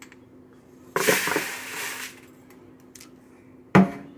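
Dry rice poured from a glass measuring cup into a mixing bowl: a hissing rush of grains lasting about a second. Near the end there is one sharp knock.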